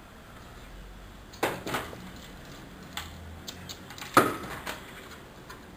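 Scattered clicks and knocks of plastic toy guns being handled, about five in all. The loudest is a knock about four seconds in.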